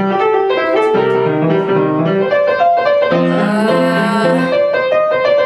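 Piano playing a tune: a melody in the middle range over a repeating figure of low notes, without a break.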